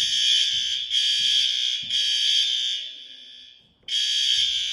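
Fire alarm horns sounding the building evacuation signal, a loud high-pitched blare in three long blasts, a brief pause about four seconds in, then sounding again. This is the new fire alarm system being tested.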